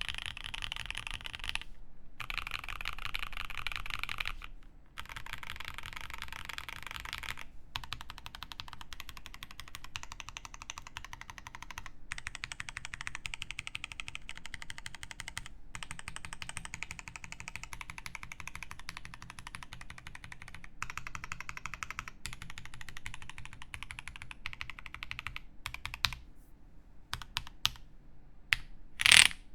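Fast, continuous typing on a TOMO mechanical keyboard with lubed OP Black switches, an aluminium plate and GMK ThinkCaps keycaps. The keystrokes thin out near the end, and one sharp, much louder click comes just before it stops.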